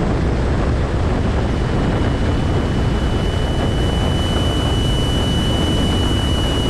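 Cessna 172SP's four-cylinder Lycoming IO-360 engine and propeller droning steadily in flight, heard from inside the cabin, with wind rush. A faint steady high tone comes in about a second in and holds.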